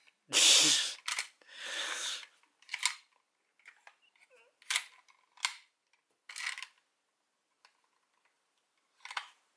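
Handling noise from a plastic toy key: two short rushing scrapes in the first two seconds, the first the loudest, then scattered sharp plastic clicks as its spinner part is worked by hand.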